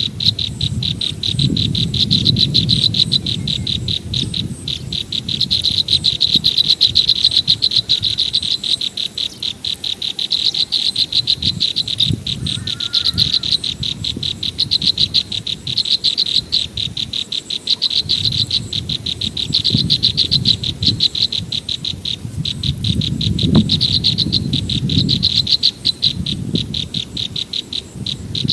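A wildlife chorus of rapid, high, pulsing trills that swell and fade in long phrases without a break, over an uneven low rumble that comes and goes.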